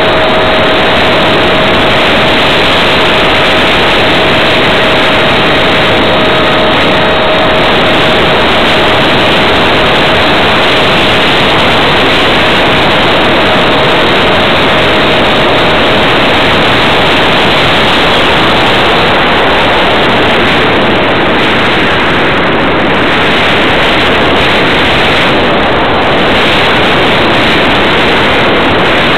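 Loud, steady wind rush on an RC plane's onboard camera microphone in flight, with a thin steady whine from the electric ducted-fan motor that fades away about halfway through as the power is cut. The plane then glides with the fan stopped and only the wind noise remains.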